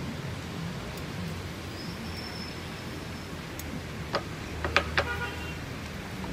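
Metal cupping spoon clinking against ceramic cupping bowls: a few sharp clinks about four to five seconds in, the last ringing briefly, over a steady low background hum.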